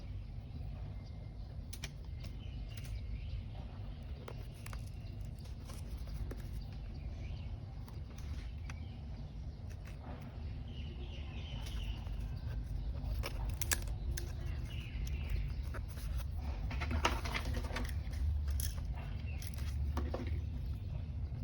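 Small handling sounds of paper journaling, short scattered clicks and light rustles, over a steady low hum, with faint bird chirps in the background.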